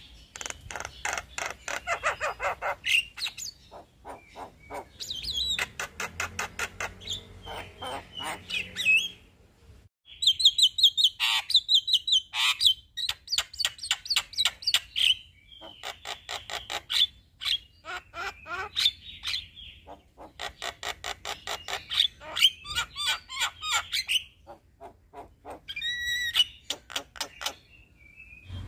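Male Javan myna singing long rolling, chattering phrases, each a fast train of clipped notes lasting a few seconds, separated by short pauses, with a brief full stop about ten seconds in.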